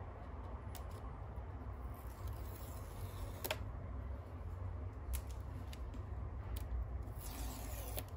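Card-and-paper packaging of an Apple Watch Ultra box being handled and opened: a few light taps and clicks, the sharpest about three and a half seconds in, then a short rustle of paper sliding just before the end. A low steady hum lies underneath.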